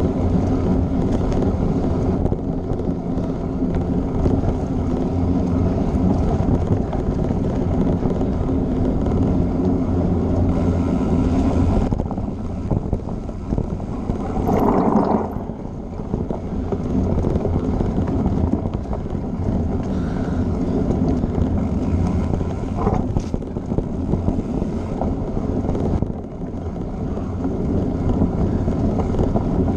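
Mountain bike riding a dirt singletrack: tyres rumbling on the trail under a steady rush of wind over the bike-mounted camera's microphone, with a brief louder rush about halfway through.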